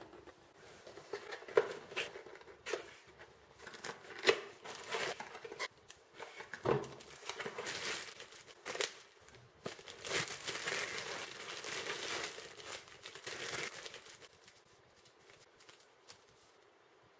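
Clear plastic bag crinkling, rustling and tearing as a coiled XLR cable is unwrapped from it, with cardboard box handling and a few sharp clicks.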